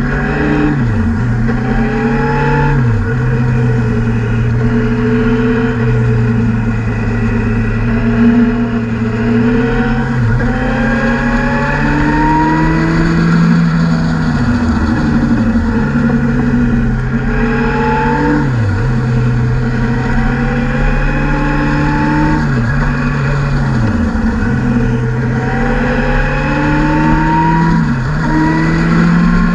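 Motorcycle engine heard on board while riding a winding road. The engine note climbs slowly, then drops sharply and picks back up about half a dozen times as the throttle is closed and reopened through the bends.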